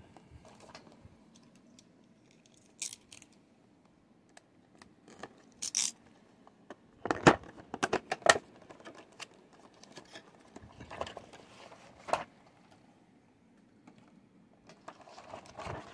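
Plastic toy packaging handled and opened by hand: scattered crinkles and sharp clicks of the clear plastic box and insert, busiest about seven to eight seconds in.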